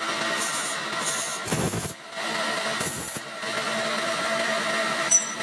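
Welding torch laying short tack welds on steel pipe: three brief crackling bursts with pauses between them. A short high beep sounds near the end.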